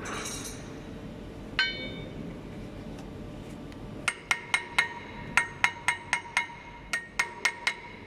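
Steel backing plate of a new truck disc-brake pad clinking against the caliper as it is worked into place. One ringing clink comes about a second and a half in. From about four seconds in comes a quick run of a dozen or so sharp metal knocks, about four a second, each ringing at the same pitch.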